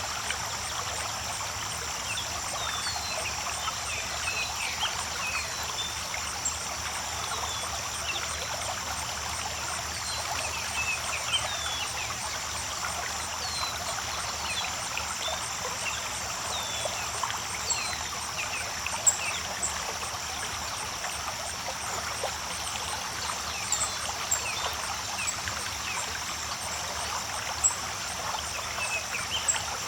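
Creek water babbling and trickling steadily over rocks, full of small gurgles, with a steady high hiss above it.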